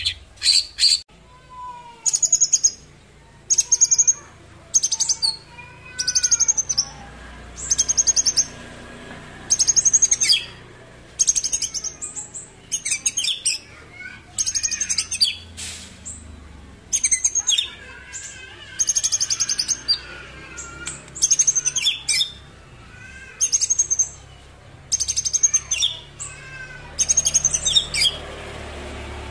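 White-rumped shama (murai batu, Pasaman type) singing loudly. Short phrases of shrill, rapidly repeated notes come about every second or so, with softer, lower curving whistles in between.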